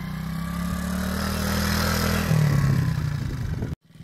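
Kazuma Falcon 90cc quad's small single-cylinder four-stroke engine running under way, its note changing a little over two seconds in. The sound cuts off suddenly near the end.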